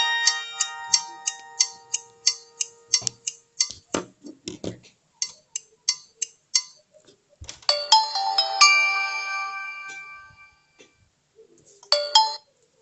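Nokia 300 ringtones playing back to back: a quick run of short, plucked-sounding notes, then a new tune starts about halfway with a ringing chord that fades away, and a brief few notes near the end.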